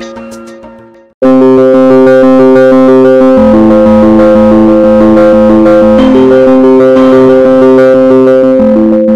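Background music for the outro. A quieter track fades out in the first second, then a loud synthesizer-keyboard piece starts abruptly, with held chords that change every couple of seconds over a quick, even pulse.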